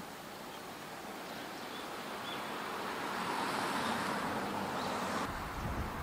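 Road traffic rushing past, growing louder over several seconds and then cutting off abruptly near the end, where wind rumbling on the microphone takes over.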